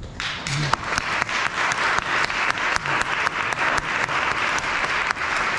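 Audience applauding, breaking out suddenly just after the start and going on steadily as a dense patter of many hands clapping.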